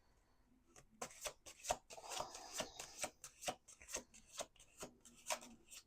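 A tarot deck being shuffled by hand: a faint run of irregular soft card slaps and rustles, starting about a second in.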